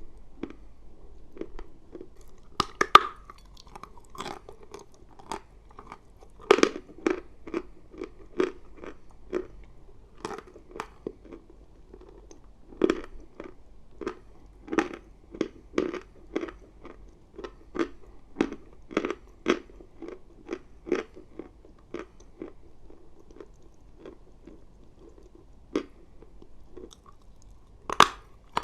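A person biting and chewing dry chalk close to the microphone: sharp, crisp crunches. A few louder bites stand out, one about three seconds in, another near the end, and the chews in between come at about two a second.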